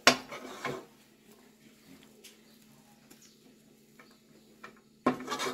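A spoon stirring and scraping thick coxinha dough in a cooking pot: a loud scrape just after the start and another near the end, with light taps and clicks between.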